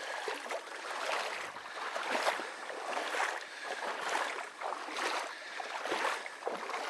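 Footsteps wading through shallow marsh water: a slosh and swish with each stride, about one a second.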